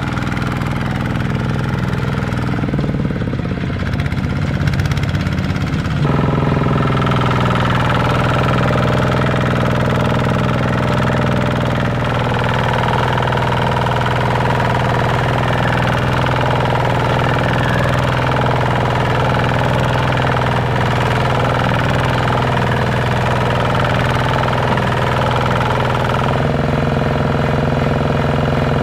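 Kubota single-cylinder diesel walking tractor running steadily while hauling a loaded trailer through mud. The engine jumps louder about six seconds in.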